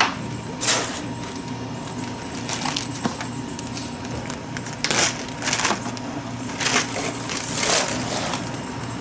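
Clear plastic zipper bags crinkling as they are handled and packed into a plastic ice cooler, in several short rustling bursts over a low steady hum.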